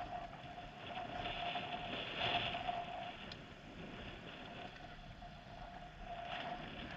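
Faint outdoor ambience: a thin steady hum that fades in and out, over a soft rushing noise.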